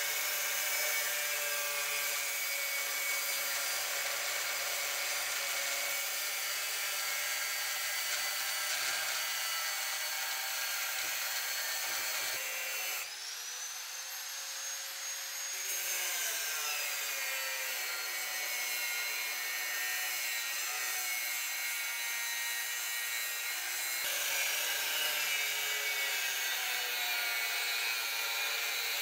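Angle grinder with an abrasive cutoff disc cutting into a flat steel bar held in a vise, a steady grinding whine while roughing out a knife blank. About halfway through, the whine jumps higher in pitch for a few seconds, then glides back down.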